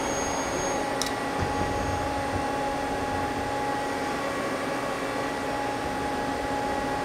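Mazak CNC lathe running at rest: a steady machine hum with a few fixed tones, and a single sharp click about a second in, as the turret is brought toward the part.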